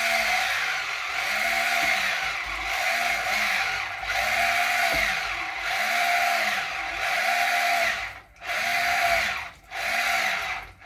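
Electric citrus juicer motor running as a half orange is pressed down onto its spinning reamer, its pitch rising and falling about once a second. It cuts out briefly twice near the end as the pressure is let off.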